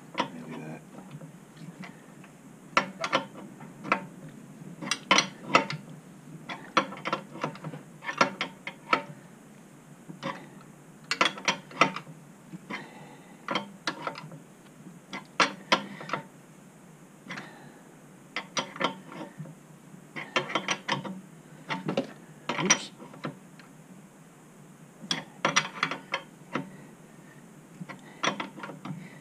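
Ratchet clicking in short bursts of rapid clicks, stroke after stroke, as the nut on a motorcycle main stand's pivot bolt is run on and tightened.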